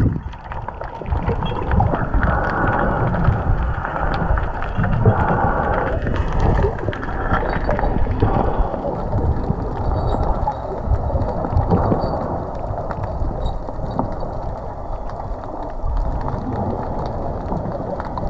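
Muffled, continuous underwater noise: water rushing and bubbling around the camera housing, with irregular low rumbles, as a diver swims.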